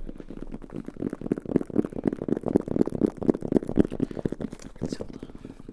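Fingertips tapping quickly on a brown leather-covered zippered hard case held close to the microphone, giving a dense run of dull, muffled knocks that builds up about a second in.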